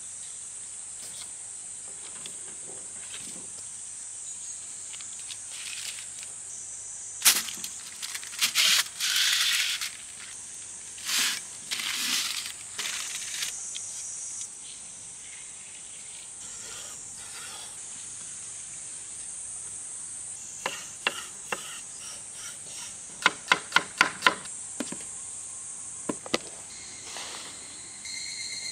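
A steady, high-pitched chorus of insects runs underneath. Over it come intermittent handling noises from food preparation: a few louder noisy bursts lasting a second or two, then a quick run of about half a dozen sharp clicks a little over three-quarters of the way through.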